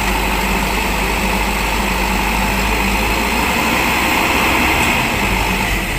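A Mitsubishi Fuso dump truck's diesel engine runs steadily while its hydraulic tipper bed rises.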